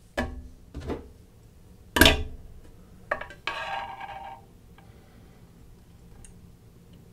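Thin stamped steel spanner clinking as it is handled and set down on a wooden tabletop: a few sharp knocks, the loudest about two seconds in, then a short metallic ring about three and a half seconds in.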